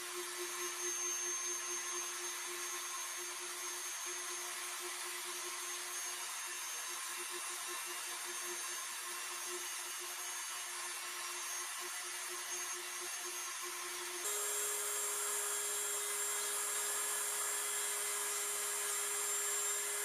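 Dremel 3000 rotary tool running at a steady high whine, a fine white abrasive stone grinding feather texture into tupelo wood with a soft hiss. About 14 seconds in the sound cuts to a slightly higher whine with a brighter hiss.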